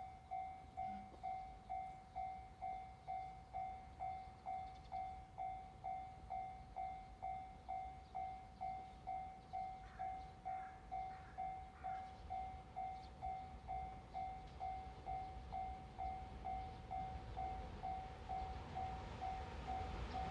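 Railway level-crossing warning bell ringing steadily, a little over two strikes a second. A low rumble builds under it near the end as the freight train approaches.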